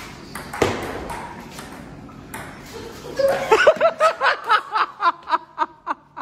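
Table tennis ball clicking off paddles and table in a rally. From about three seconds in, someone breaks into a run of rhythmic laughter, about four bursts a second, fading toward the end.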